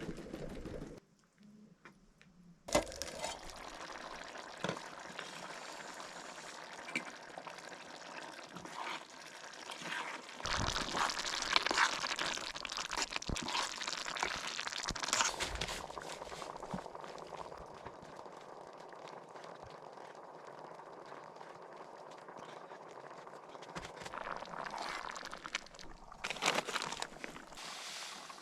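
Kitchen cooking sounds: liquid pouring and bubbling in a pot, with scattered knocks and clicks of utensils. It briefly drops almost silent about a second in, and is loudest through the middle.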